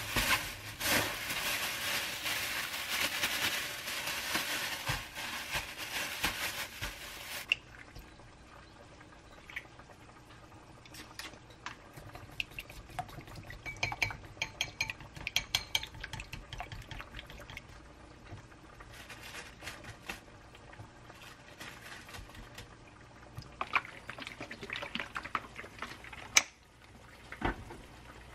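Plastic bag crinkling and rustling as zucchini slices are shaken in frying mix for about seven seconds, then quieter rapid clicking of chopsticks beating an egg in a glass bowl. A single sharp knock near the end.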